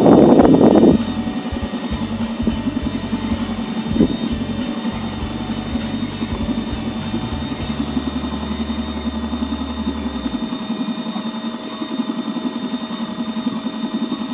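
A small machine whirring steadily, with a low rumble underneath that stops about ten seconds in.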